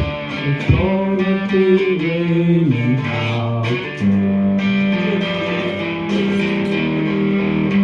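Amplified cigar box guitar playing a blues instrumental passage, held notes sliding up and down in pitch between them.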